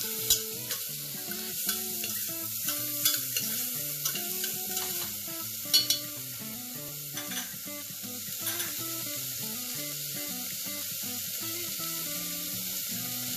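Chopped onions sizzling in oil and ghee in a pressure cooker as they are stirred, with a spoon knocking against the pot a few times.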